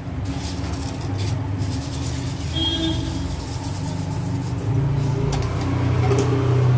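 A steady low rumble like a road vehicle's engine, swelling toward the end, with faint ticks and rattles of granulated sugar being spooned from a plastic tub into a steel pan of water early on.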